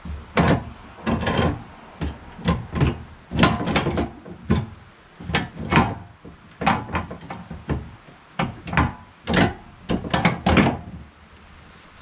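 Metal log clamp on a sawmill bed being worked by hand against a wooden log: a series of about twenty short clanks and knocks, irregularly spaced.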